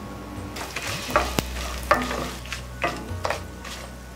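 Wooden spatula stirring coriander seeds, peanuts and dried red chillies frying in sesame oil in a stainless steel pan: about five scraping strokes over a light sizzle.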